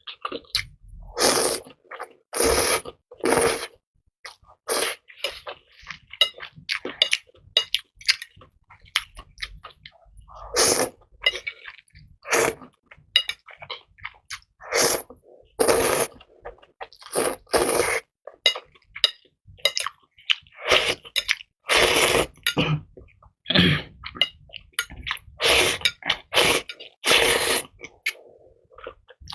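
Close-miked eating of shrimp and spicy noodles: chewing and mouth sounds in irregular loud bursts, a second or two apart.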